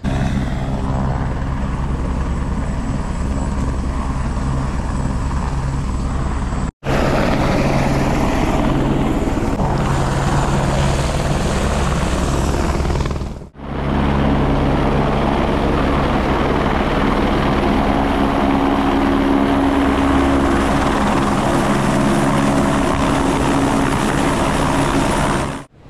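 Helicopter running close by: a loud, steady rotor and turbine noise, heard in three clips that cut off abruptly about 7 and 13.5 seconds in.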